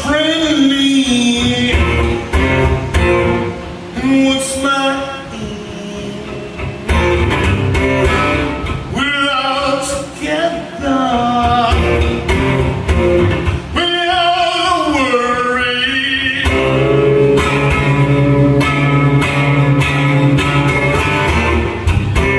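Man singing to his own strummed and picked acoustic guitar through a PA, the guitar carrying on alone between sung lines.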